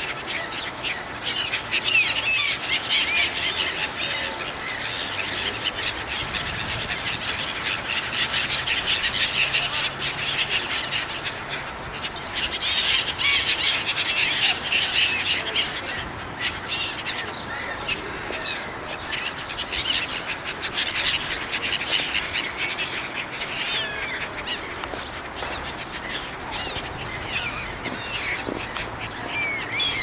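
A flock of gulls calling over a river: many overlapping short, high squealing cries that come in waves, busiest a couple of seconds in and again around the middle. The birds are crowding and screaming for food.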